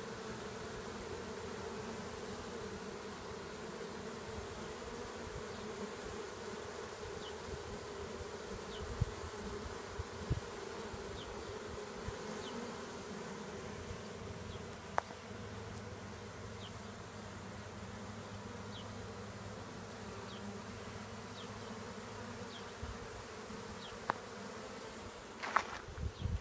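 A honeybee colony buzzing steadily at a new hive's entrance as the bees fan to signal the rest of the colony that the queen is inside. A few brief clicks sound over the buzz.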